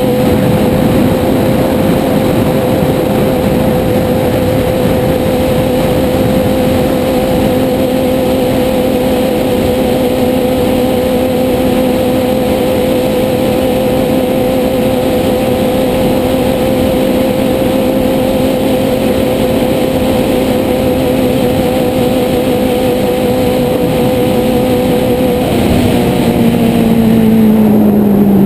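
Sport motorcycle engine running at a steady, high engine speed while riding, heard from the bike itself over a rushing haze of wind and road noise. Over the last couple of seconds its pitch slides down as the engine speed drops.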